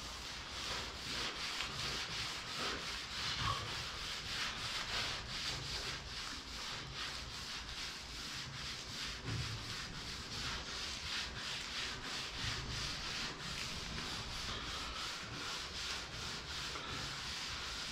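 A hand-held cloth scrubbing back and forth over the wet painted steel of a car hood in quick, even strokes, as the top coat of repaint is rubbed off.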